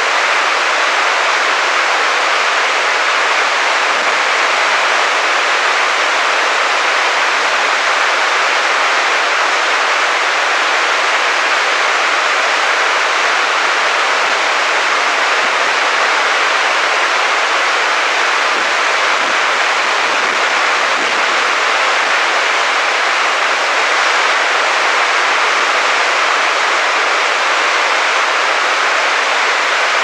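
Water rushing down a three-tiered rocky waterfall: a loud, steady roar of white water that stays even throughout.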